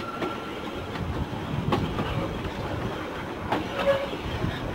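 Metre-gauge Nilgiri Mountain Railway train running slowly on the line, heard from the front window of its coach: a steady low rumble with single sharp clacks of the wheels over rail joints, two of them a couple of seconds apart.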